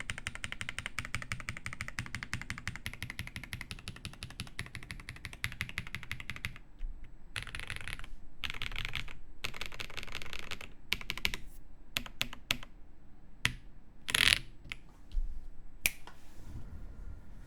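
Zoom TKL mechanical keyboard with lubed MM switches in a carbon fibre plate and GMK keycaps being typed on: a fast, dense run of keystrokes for the first six seconds or so, then slower, scattered bursts of keys with a few louder strikes near the end.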